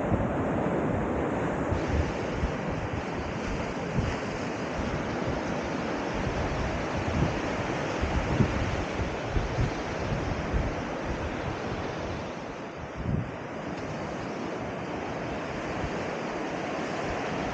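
Sea surf washing onto the shore, a steady rushing noise, with wind buffeting the microphone in irregular low gusts.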